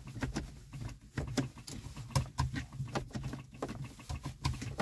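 Irregular light clicks and taps as a hand works the dashboard controls and the push-button start switch.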